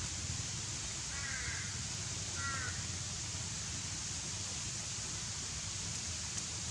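Two short bird calls about a second apart, over a steady outdoor hiss.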